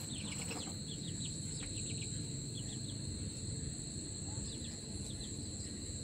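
Steady high-pitched cricket chirring over a low background rumble, with a few faint, short falling peeps from a young Aseel chick.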